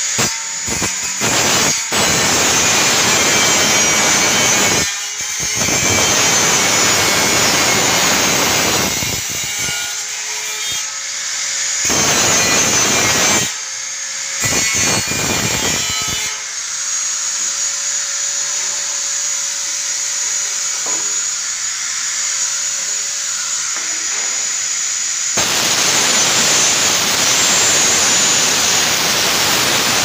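Angle grinder with a cut-off disc cutting through a sheet-steel cable tray in several passes, the loud grinding breaking off briefly between them. In the middle stretch it runs under lighter load with a steady whine before biting in hard again near the end.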